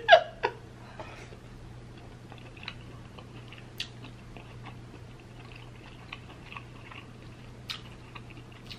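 A person chewing a mouthful of king crab meat in sauce: soft mouth sounds with scattered small clicks.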